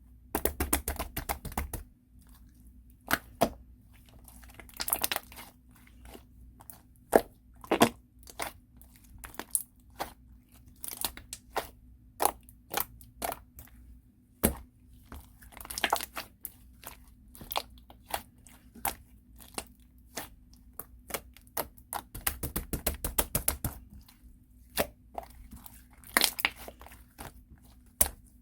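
Clear slime being pressed and folded by hand, giving irregular sharp pops and clicks. There are two dense runs of rapid clicking, one at the start and one about 22 seconds in.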